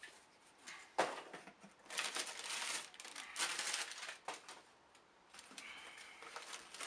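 Cardboard box and plastic packaging being handled as a cordless stick vacuum is lifted out: a sharp knock about a second in, then rustling and scraping, a few light clicks and a short squeak near the end.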